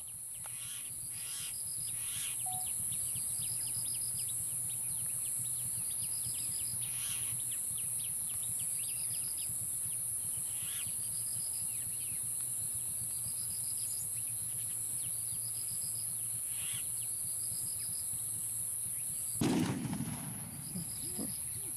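Outdoor ambience: a steady high-pitched insect drone with short bird chirps repeating every second or two. About three-quarters of the way through comes one brief, loud rushing thump.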